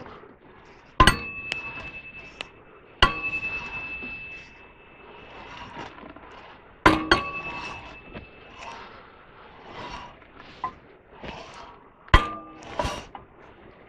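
Steel being struck: four sharp metallic clangs a few seconds apart, each ringing on briefly at the same pitch, with lighter knocks and rattles between.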